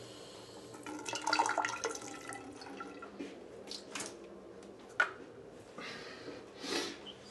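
Water thrown from a paper cup splashing against a bathroom mirror, with a loud splash about a second in, two sharp knocks a few seconds later, and a short spray from a spray bottle near the end.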